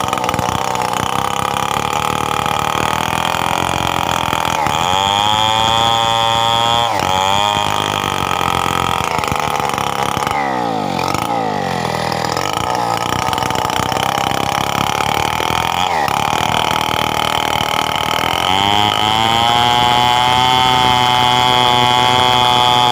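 Stihl 070 two-stroke chainsaw running loudly, its engine pitch rising and falling several times as it is revved up and dropped back. It climbs to a steady high pitch near the end.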